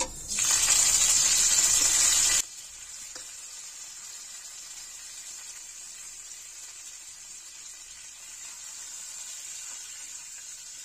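Cumin, mustard seeds and curry leaves hitting hot oil in a kadhai and sizzling loudly as the tempering goes in. About two seconds in, this drops abruptly to a quieter, steady sizzle as the spices fry.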